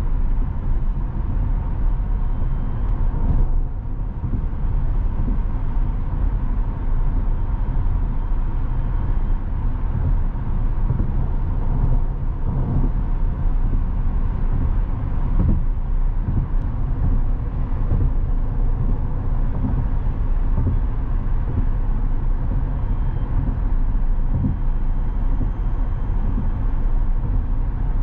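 Steady low rumble of road and tyre noise from a Tesla Model S Plaid driving along, with no engine sound, only a faint steady tone above the rumble.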